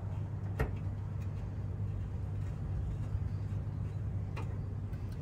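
Two sharp metallic clicks, one about half a second in and one near the end, from brake line fittings being handled by hand, over a steady low hum.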